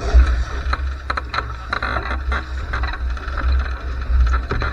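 Wind buffeting the microphone over the rush of water along a Laser 2 sailing dinghy's hull in strong wind, with scattered short knocks and clicks.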